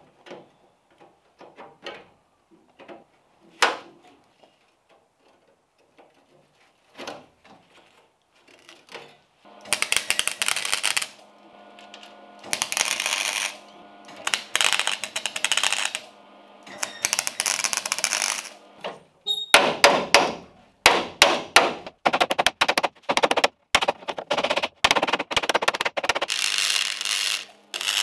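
A MIG welder crackling in a run of separate bursts as tack and stitch welds are laid on a steel patch in the car's sill, with a steady hum under each burst. The bursts start about a third of the way in, last a second or so each at first, then come shorter and quicker. Before that there are only light metal taps and clicks while the panel is positioned.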